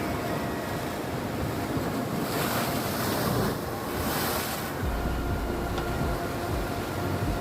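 Sea waves breaking on rocks, with a swell of hissing surf about two to five seconds in. Wind buffets the microphone with a low rumble in the second half.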